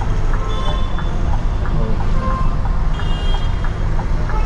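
Steady low rumble of an MSRTC Scania multi-axle bus's diesel engine and tyres as it moves slowly through city traffic, heard from the driver's cab. Two short high-pitched tones cut in, about half a second in and again about three seconds in.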